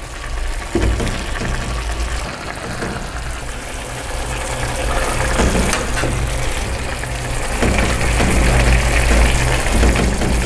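Stuffed caiguas simmering and bubbling in broth in a metal pot as they are turned with a spatula and fork. A steady low hum runs underneath, and the bubbling grows a little louder about halfway through.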